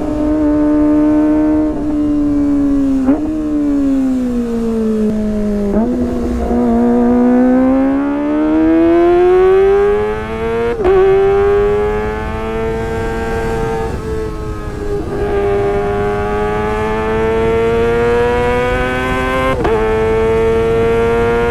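Kawasaki ZX-25R's 249 cc inline-four engine running through a Sportisi Motorsport SRX aftermarket exhaust. Its pitch falls over the first six seconds, then climbs slowly for the rest, broken by a few short sharp steps in the note.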